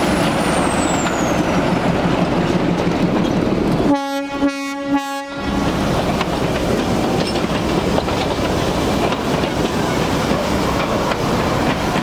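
Darjeeling Himalayan Railway diesel toy train passing close by, its engine and running noise steady throughout, with one horn blast of just over a second about four seconds in.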